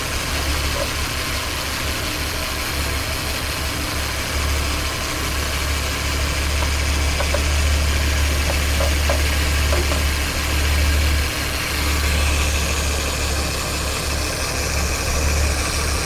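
Ford Taurus engine idling with a vacuum leak at a cracked PCV hose, which is being held shut with duct tape. The idle is not quite steady.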